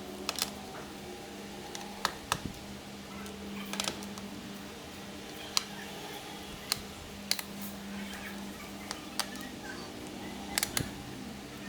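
Irregular sharp clicks and taps of a Toshiba Satellite P850 laptop being disassembled, tools and plastic parts knocking against each other, about a dozen over the stretch, over a steady low hum.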